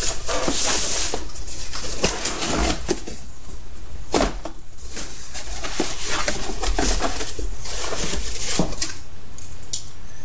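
A cardboard shipping box being opened and unpacked by hand: rustling and scraping of cardboard and packing, with a bright tearing hiss about half a second in and a few sharp knocks.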